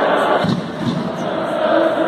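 Large football stadium crowd chanting and singing, with many voices together in a dense, steady din.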